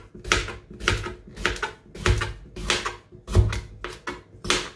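Kitchen knife slicing a cucumber into rounds on a plastic cutting board: a steady run of crisp chops, about three a second.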